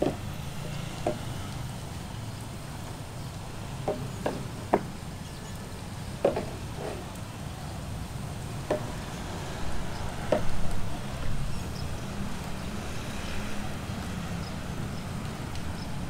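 Scattered light knocks and taps of construction hand work, irregular and a few seconds apart, with a louder cluster a little past the middle, over a steady low background rumble.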